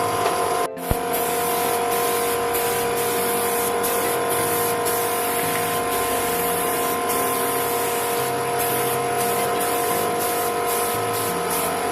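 Spray gun hissing as clear coat is sprayed in repeated on-off passes, over a steady machine hum. There is a brief dropout about a second in.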